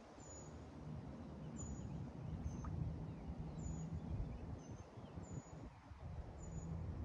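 Wind buffeting the camera microphone: a low noise that rises and falls with the gusts. A few faint bird chirps sound over it.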